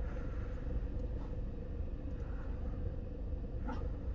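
Diesel-fired shop furnace running on a cold start, a steady low rumble with a constant hum over it.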